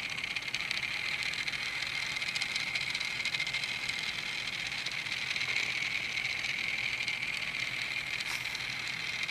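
Tiny electric motor of a 1/1000-scale Teeny Trains locomotive running steadily as the train circles its oval track: a constant high-pitched whine with a fine rattle of the wheels over it.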